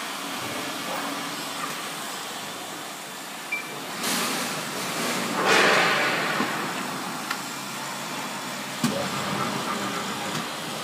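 Water poured from a bucket into the stainless steel bowl of a spiral dough mixer, a rushing splash that is loudest about four to six seconds in, over a steady workshop hum. A sharp clack comes near the end.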